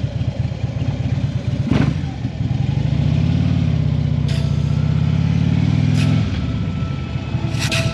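2015 Harley-Davidson Ultra Limited's V-twin engine running at low speed with a loping, uneven beat. It pulls smoother and louder for about four seconds in the middle, as throttle is held, then drops back to the lope. A few short sharp clicks are heard over it.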